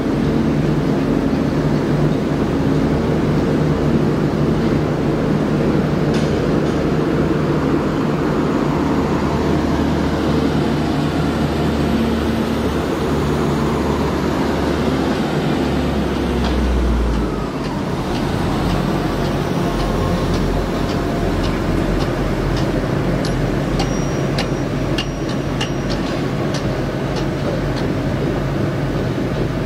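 GWR Class 800 bi-mode train standing at the platform, its underfloor power equipment running steadily with a low hum whose pitch shifts about halfway through. A few light clicks and a brief high beep come near the end.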